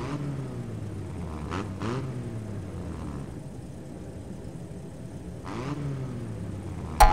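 Cartoon engine sound effect of a monster truck running steadily, with repeated revs that fall in pitch. Right at the end comes a short, loud, bright pickup sound.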